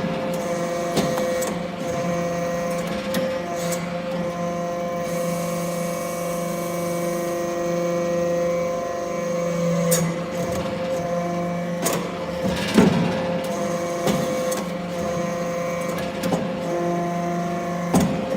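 Automatic metal-chip baler's hydraulic power unit running with a steady hum, with occasional clicks and knocks from the machine.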